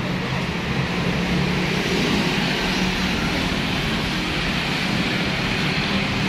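Street traffic: motorbike engines passing with a steady hum.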